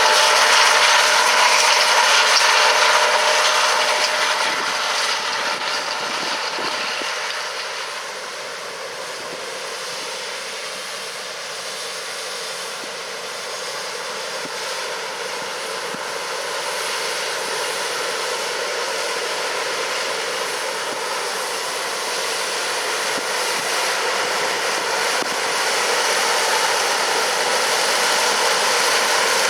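John Deere S680 combine running steadily while harvesting corn. It is loudest at first, fades over the first eight seconds or so, then grows louder again toward the end.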